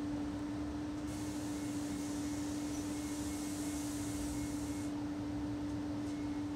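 Room tone of a quiet bedroom: a steady low hum over a constant background hiss, with a brighter hiss joining from about a second in until about five seconds in.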